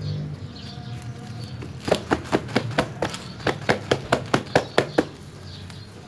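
A rapid run of about fourteen sharp clicks, roughly four or five a second, with a brief pause near the middle.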